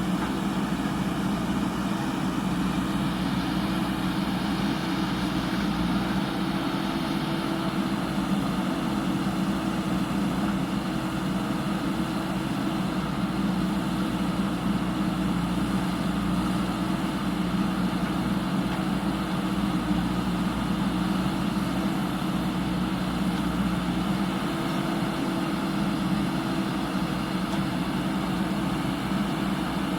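Diesel engine of a JCB 3DX backhoe loader running steadily at a constant speed, an even engine hum with no breaks.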